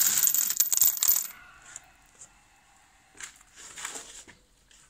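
A loose pile of metal carriage bolts in a cardboard box clinking and rattling as a hand stirs through them, a dense burst for about the first second that dies away with a light metallic ring. A few softer scuffs and knocks follow near the end.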